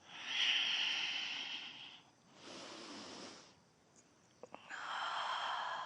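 A person breathing deeply and audibly while holding a yoga pose, three long breaths close to the microphone.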